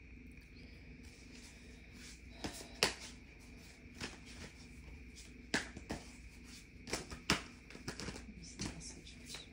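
Tarot cards being handled and shuffled: a scattered series of sharp snaps and taps of card stock, mostly from a couple of seconds in.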